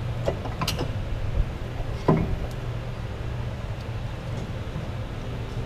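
A few light metal clicks and knocks as an air compressor's cylinder is worked down over the piston and its new rings, with two sharper knocks under a second in and about two seconds in, over a steady low hum.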